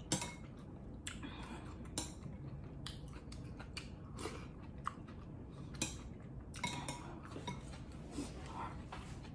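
Metal spoon clicking and scraping against a stainless-steel soup pot several times, between close-up chewing of soup and noodles.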